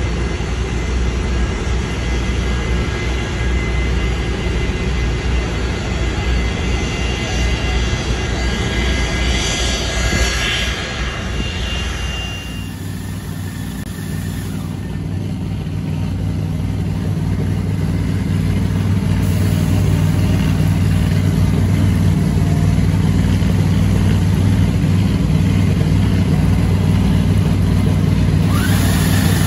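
Drag-racing engine noise: a steady rushing noise with a deep rumble for about the first twelve seconds, then, after an abrupt change, an engine idling with a steady low hum that grows louder for several seconds and then holds.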